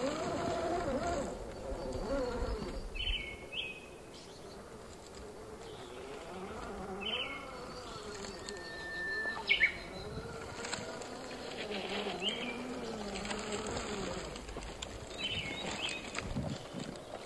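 Scale RC rock crawler's electric motor and gears whining, the pitch wavering up and down as the throttle changes, with birds chirping several times.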